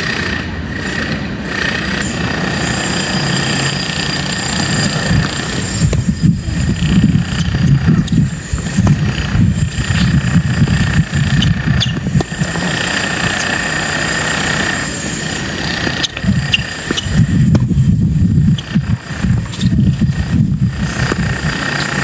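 Strong wind buffeting the microphone: a loud, continuous low rumble that swells and drops in gusts, with faint steady high tones behind it.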